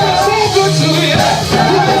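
Gospel praise music from a live church band, with steady bass notes and singing voices over it.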